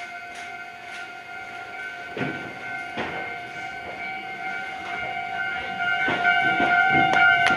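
Railway level crossing warning bell ringing with a steady tone that grows louder as the train approaches it. A few sharp clacks of the train's wheels over rail joints come through beneath.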